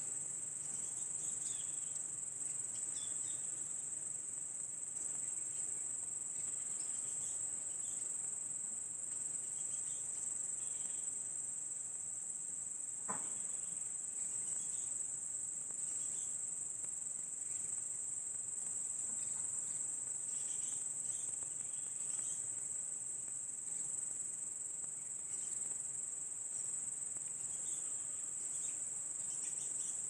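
Steady, high-pitched chorus of insects, one continuous shrill buzz that never lets up, with faint short high chirps now and then and a single soft tick near the middle.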